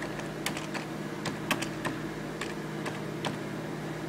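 Keys tapped irregularly on a laptop keyboard, about a dozen keystrokes, with a steady low hum underneath.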